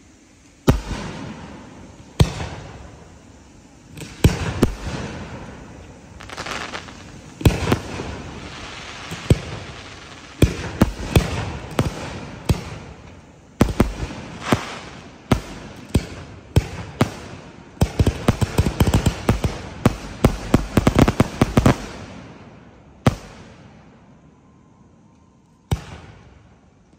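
Aerial firework shells bursting overhead: sharp booming reports every second or two, each dying away in an echo. About two-thirds of the way through they build into a rapid string of bangs and crackle, then thin out to a couple of single bangs near the end.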